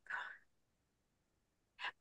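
A pause in a woman's speech: a faint breath at the start, then near silence, and a short intake of breath just before she speaks again.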